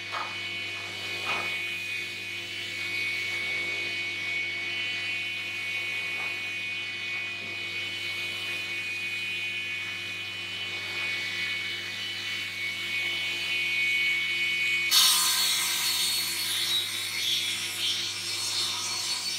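Prima 2500 sliding panel saw running idle with a steady whine, with a couple of knocks near the start as a slab is laid on the table. About fifteen seconds in, the blade cuts into a thick rose gum slab and a loud, hissing cutting noise rises over the whine and lasts to the end.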